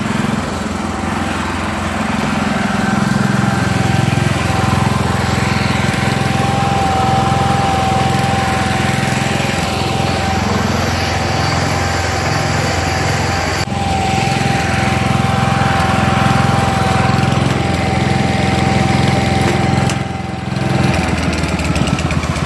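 Wheel Horse garden tractor's small engine running steadily, with a steady high whine over it. The sound dips briefly about 20 seconds in.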